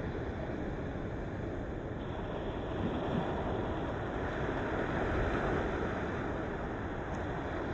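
Ocean waves: a steady rush of surf that swells a little in the middle.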